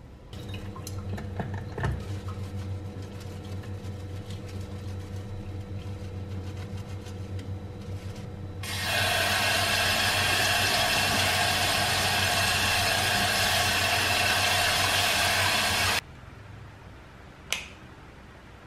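Kitchen tap running hard into a stainless-steel sink as a ceramic bowl is rinsed under it; the rush of water starts a little under halfway in and cuts off suddenly. Before it there is a low hum with a few small knocks, and a single sharp click comes near the end.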